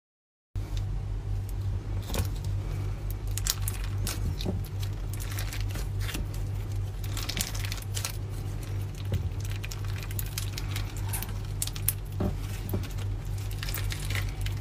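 Slime being squeezed and poked, giving a dense run of small crackling clicks and pops, starting suddenly after a moment of silence, over a steady low hum.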